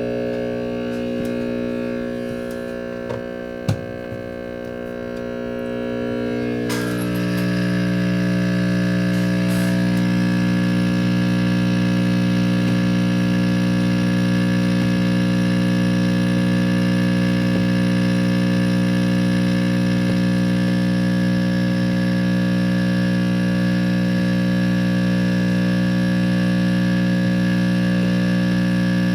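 1954 General Electric C407 tube radio humming loudly through its speaker, a steady mains hum with many overtones that gets louder about seven seconds in, with a single click shortly before. The hum is the sign of bad electrolytic filter capacitors.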